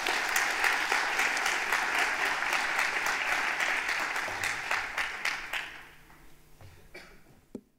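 Audience applauding, a dense crackle of clapping that thins out and dies away about six seconds in.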